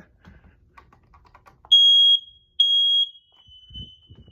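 Firex smoke alarm set off with its test button: a few faint clicks, then two loud high-pitched beeps about a second apart, with a fainter steady alarm tone carrying on after them.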